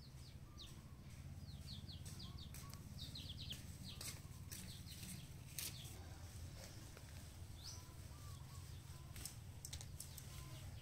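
Faint outdoor ambience: small birds chirping in quick series of short, high, falling notes, mostly in the first few seconds, over a low steady hum, with scattered light clicks.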